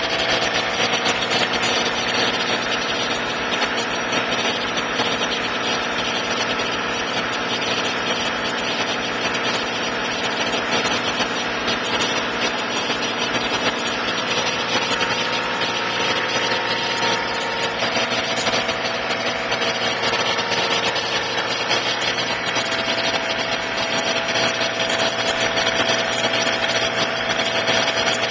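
Engine of a front-end-loader tractor running steadily, a continuous even drone with no pauses.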